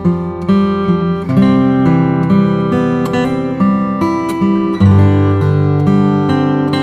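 Background music: acoustic guitar being strummed and plucked in a steady rhythm, with chords changing about every half second.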